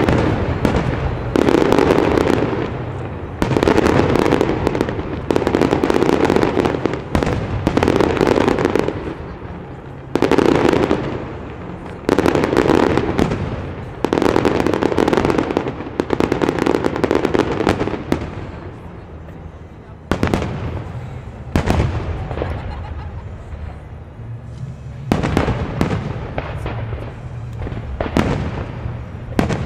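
Aerial firework shells bursting in quick succession, one heavy boom every second or two, each ringing on for about a second. In the last third the bursts come more sparsely as sharper cracks.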